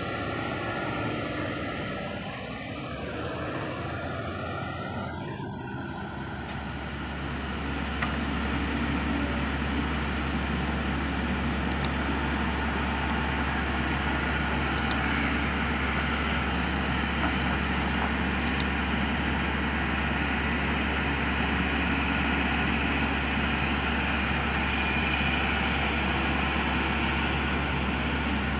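Kobelco SK200 hydraulic excavator's diesel engine running while it digs soil, its pitch shifting with the hydraulic load for the first few seconds. About six seconds in, the sound changes to a steady low hum, with a few short sharp clicks.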